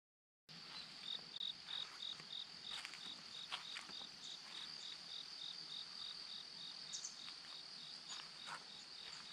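Insects chirping in summer woodland: a steady high buzz with a regular pulsed chirp about three times a second, starting about half a second in, with a few faint clicks.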